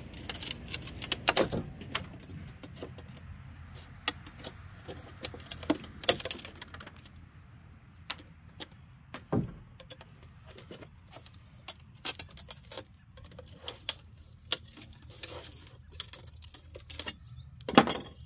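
Irregular clicks, scrapes and knocks of a putty knife prying at a pickup truck side mirror's plastic housing and glass, with a sharp knock near the end as the mirror assembly is shifted on the wooden boards.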